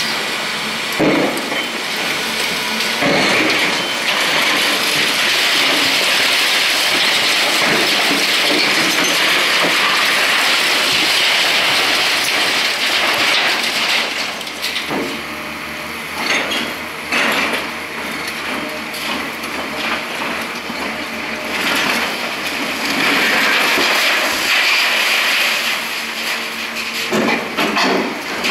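Concrete breaking and rubble falling as a Liebherr R944 high-reach demolition excavator tears into a multi-storey building, a continuous loud clatter. Heavy knocks come about a second in, around three seconds, several midway and again near the end. The clatter eases somewhat in the middle before building up again.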